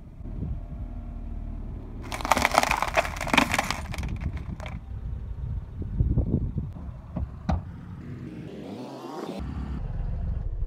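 Glass face and plastic case of a wall clock cracking and shattering under a car tyre: a dense burst of sharp cracks about two seconds in, lasting about two seconds, followed by a low car rumble and a single sharp click.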